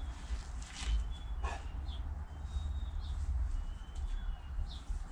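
Faint high chirps, short thin calls recurring every second or so in the manner of small birds, over a steady low rumble, with a brief rustle about a second in.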